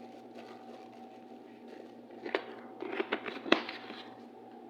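A few sharp clicks and light knocks of small parts being handled on a workbench, as a resistor is taken out of a parts stock. They come in a cluster a little over two seconds in, with the loudest click about three and a half seconds in, over a faint steady hum.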